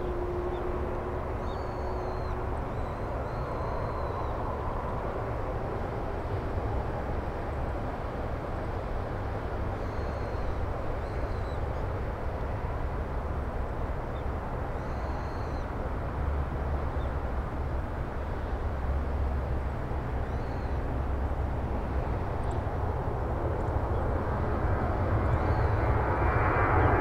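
Airbus A320 jet engines at takeoff thrust, a steady distant rumble that grows louder over the last few seconds as the airliner lifts off and climbs toward the listener.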